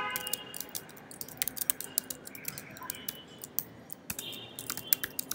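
Typing on a computer keyboard: a run of irregularly spaced key clicks.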